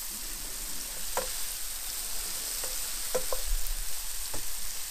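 Sliced onions and mushrooms sizzling in butter in a frying pan, with a steady hiss, while a wooden spatula stirs them and knocks against the pan a handful of times.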